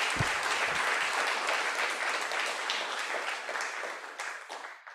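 Audience applauding, with many hands clapping, tapering off and stopping near the end. A brief low thump comes just after the start.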